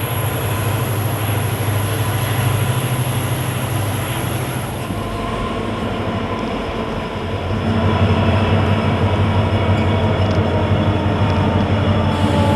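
Passenger train running with a steady low mechanical hum and a faint high whine; the whine stops about five seconds in, and the hum grows louder and fuller about eight seconds in.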